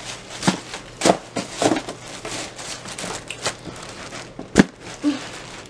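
Handling noise from a shoebox and its paper wrapping: rustling and crinkling with scattered clicks, and one sharp knock about four and a half seconds in.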